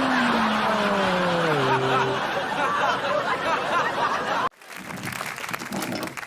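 Audience laughter, with a pitched tone sliding down in steps over the first two seconds; the laughter cuts off abruptly about four and a half seconds in.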